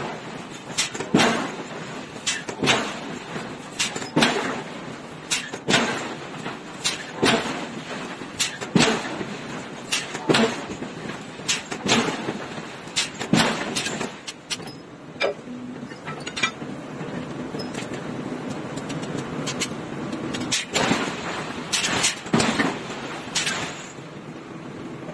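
Power hammer repeatedly striking a red-hot metal blank in a forging die ring, heavy metal blows about one a second. The blows pause for several seconds midway, then start again.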